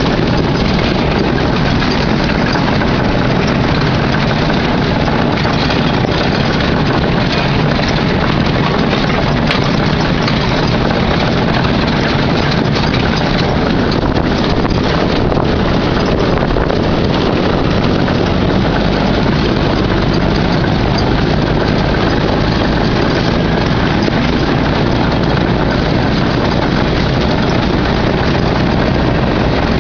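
Off-road buggy driving over a rough desert trail: its engine runs without a break under a loud, steady wash of wind and trail noise on the onboard microphone.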